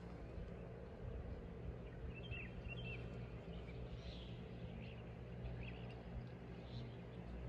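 Faint outdoor ambience: a low steady hum, with a few short bird chirps about two seconds in and again around the middle.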